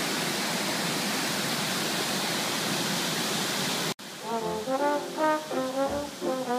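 Steady rushing roar of a three-tiered river waterfall. It cuts off abruptly about four seconds in and gives way to background music with a melody.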